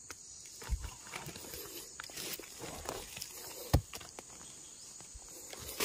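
Dry leaf litter rustling and crackling underfoot and under hand as someone moves about crouched on the forest floor, with a few dull thuds, the sharpest about three and three-quarter seconds in.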